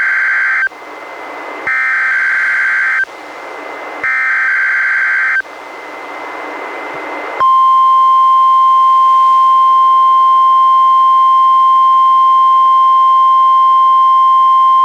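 NOAA Weather Radio Required Weekly Test coming through a weather radio receiver: the end of one harsh digital SAME header burst, then two more bursts about a second and a half apart with radio hiss between them. About seven seconds in, the steady 1050 Hz warning alarm tone starts and holds.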